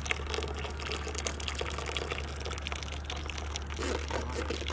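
A stream of grape juice pouring into a vat full of juice, splashing and gurgling as it hits the surface, with a steady low hum underneath.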